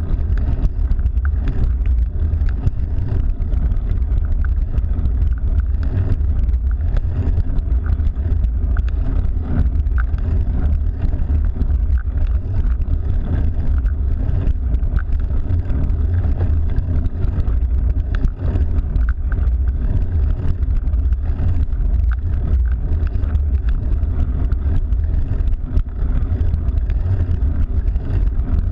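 Steady low rumble of wind buffeting the microphone of a camera carried on a moving bicycle.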